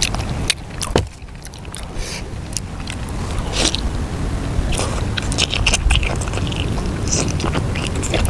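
Close-up mouth sounds of a person biting and chewing soft stewed pork: wet smacking with many small clicks and crackles, over a steady low rumble.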